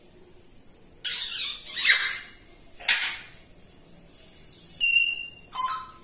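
African grey parrot making a few harsh, raspy calls, then a short clear whistle about five seconds in and a brief lower whistle just after.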